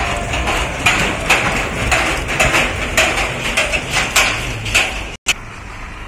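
Nesting colony of cattle egrets calling: a run of short, harsh croaks, a few a second, that breaks off suddenly about five seconds in.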